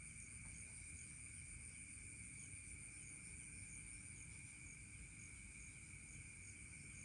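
Faint, steady chorus of night insects such as crickets: two continuous high-pitched trills at different pitches, with a fainter chirp repeating about twice a second.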